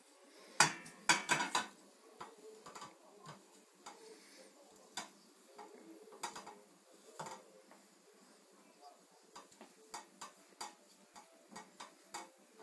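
Wooden spatula knocking and scraping against a frying pan as sausages are turned, with a quick run of loud knocks about half a second in and scattered lighter taps after.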